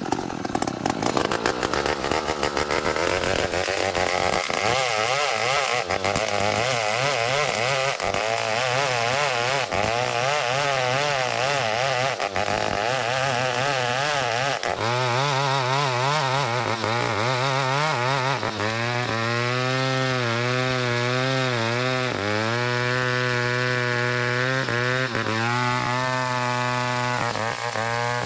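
Chainsaw running hard, ripping a small ulin (Borneo ironwood) log lengthwise into a beam. The engine note wavers up and down as the cut loads and frees it, then runs lower and steadier in the second half, easing off at the very end.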